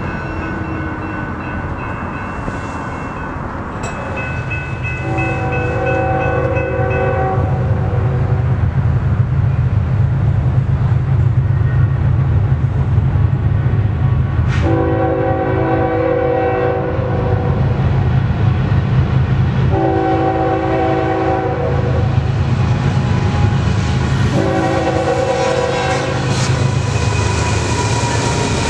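Norfolk Southern diesel freight locomotives sounding their horn in four blasts, the warning signal for a grade crossing, over the growing rumble of the locomotives' engines and wheels as the train approaches and passes close by.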